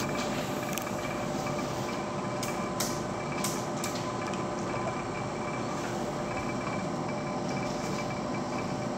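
Laboratory stirrer running steadily with a constant motor hum while it mixes the caffeine sample into water. A few light clicks come between about two and four seconds in.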